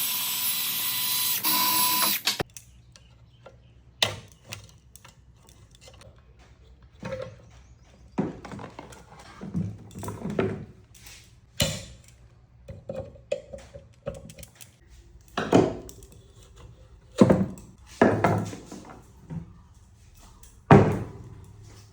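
A loud hiss with a steady tone for about two seconds that cuts off abruptly, then the metal parts of a table fan being handled while it is taken apart: scattered clicks, knocks and short scrapes.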